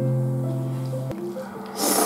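Background music with slow, held notes; near the end a loud slurp of soba noodles being sucked into the mouth begins.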